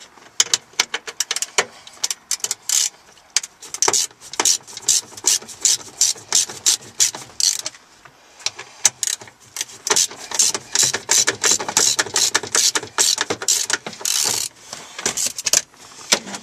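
Socket ratchet wrench clicking in quick runs as it backs out the 10 mm bolts holding a Nissan 350Z's Bose subwoofer, with short pauses between runs.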